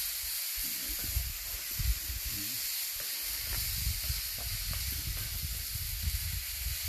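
Chicken and peppers sizzling on a hot cast iron griddle as they are stirred with a wooden spatula: a steady high hiss over an irregular low rumble.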